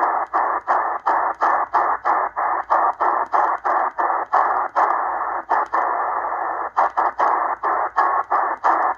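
Eton Grundig Satellit Executive shortwave receiver in upper sideband giving out a steady, narrow band of static hiss as it is tuned upward. The hiss cuts out briefly with a click about three times a second as the frequency steps. A brief faint whistle comes in near the end.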